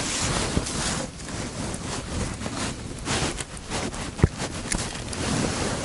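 Handling noise of a silver bream being unhooked by hand: rustling with scattered small clicks, and one sharper click just after four seconds in.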